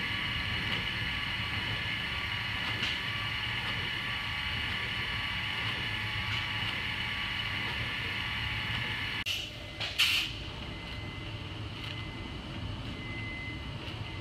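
Steady shop machinery noise from a fiberglass tank build: a drone with a hiss in it. About nine seconds in it cuts off with two sharp knocks and gives way to a quieter steady hum.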